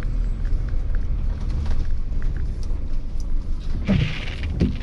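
Motorhome driving slowly, heard from inside the cab: a steady low engine and road rumble with faint scattered ticks, and one short louder noise about four seconds in.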